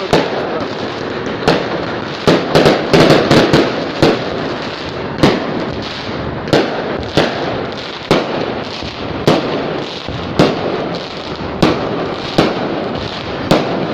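Fireworks and firecrackers going off all around: sharp bangs at irregular intervals over a continuous loud crackling, with a rapid flurry of bangs about two to four seconds in.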